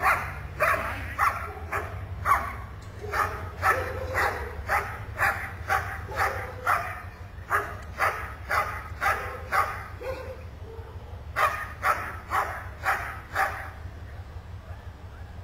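A large dog barking, about two barks a second, in four runs with short pauses between them, stopping shortly before the end.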